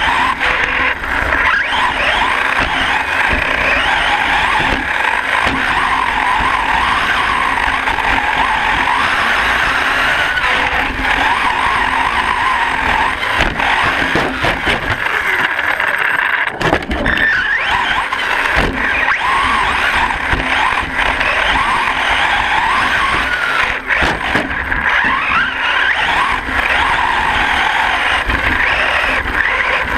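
Castle 3800KV brushless motor and geartrain of a Hyper 10SC 4x4 RC short-course truck whining, heard on board, with a pitch that keeps rising and falling with throttle. Tyres and chassis rumble over dirt, with a few sharp knocks about halfway through.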